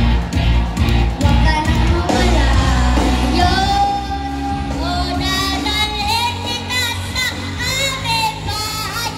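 A boy singing into a microphone, amplified over backing music. A heavy bass beat drops out about three seconds in, leaving his voice over lighter accompaniment.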